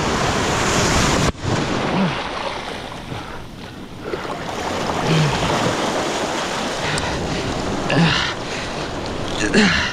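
Surf washing in steadily with wind buffeting the microphone, and a few short grunts of effort from a man straining to pull a shark in.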